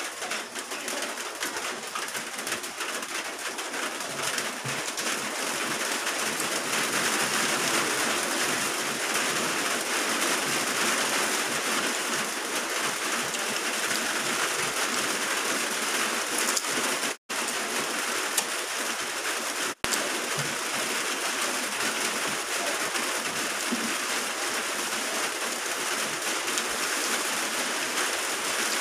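Steady rain, a continuous even hiss that builds over the first few seconds and cuts out twice, very briefly, past the middle.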